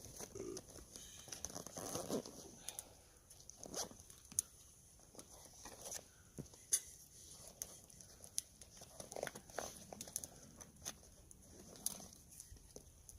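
Pine campfire crackling, with irregular sharp pops and snaps.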